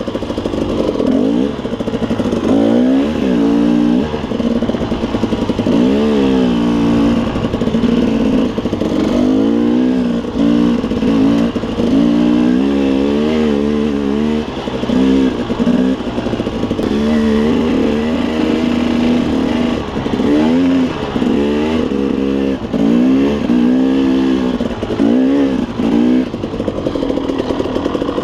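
KTM 300 two-stroke dirt bike engine revving up and down over and over, its pitch rising and falling every second or two as the throttle is opened and closed on tight singletrack.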